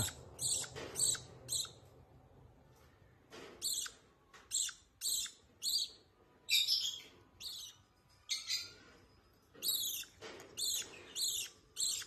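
Hand-reared lovebird chick giving short, high-pitched begging calls in quick, irregular bursts as it is spoon-fed formula, excited for food.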